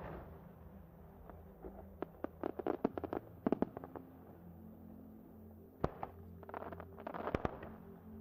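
Aerial fireworks bursting: a quick run of crackling reports about two to four seconds in, a single sharp bang near six seconds, then more crackles ending in another sharp bang about seven and a half seconds in.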